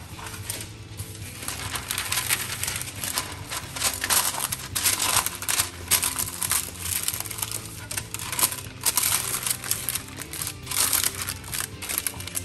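A sheet of baking parchment crinkling and crackling as it is pressed and folded into a baking pan, with background music underneath.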